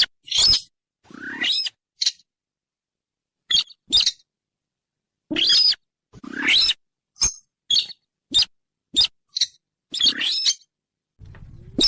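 Sintar lure call: a series of short, sharp squeaky chirps, several sweeping up in pitch and dropping back, repeated at an uneven pace with a pause about two seconds in. A faint low hum comes in near the end.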